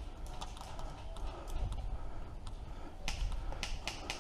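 Airsoft fire: a string of sharp, irregular cracks that come louder and faster, several a second, from about three seconds in.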